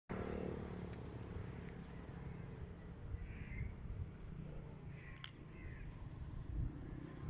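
Crows cawing a couple of times, about three and five seconds in, over a steady low rumble.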